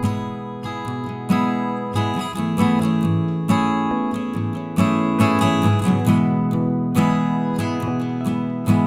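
Background music: acoustic guitar being strummed and plucked, with chords struck every half second or so.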